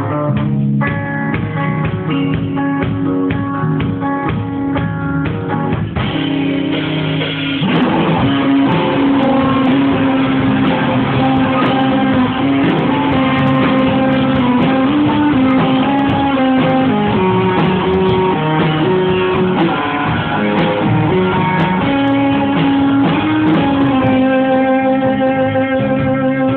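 Rock band rehearsing a song on electric guitars and keyboard: a thinner opening of held chords and notes, then the full band comes in louder about seven seconds in and plays on steadily.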